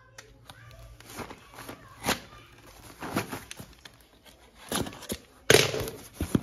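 Corrugated cardboard box handled and opened by hand: scrapes, rubs and light knocks of the cardboard, with a louder rasping tear about five and a half seconds in as the taped flaps are pulled open.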